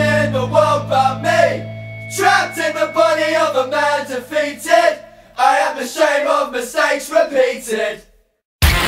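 Background music: singing voices over sustained low notes. Near the end it cuts out briefly and a different, denser track with a driving drum beat begins.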